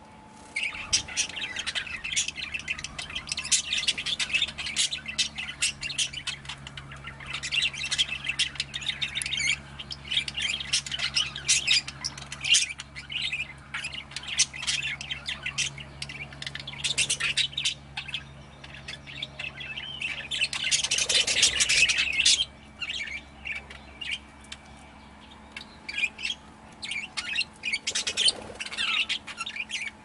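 A flock of budgerigars chattering, with many quick high chirps and squawks overlapping. The chatter swells into a loud, dense burst about two-thirds of the way through, then thins out to scattered chirps.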